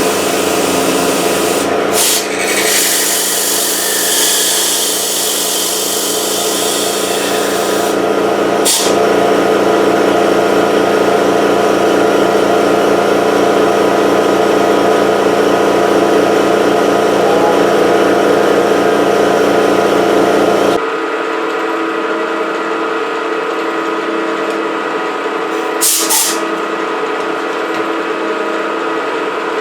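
Milling machine cutting metal: the spindle and cutter make a steady machining drone with a fast rhythmic chatter. About 21 seconds in, the heavy cutting sound drops out abruptly and the machine runs on more lightly. A few short sharp scrapes or clicks come about 2, 9 and 26 seconds in.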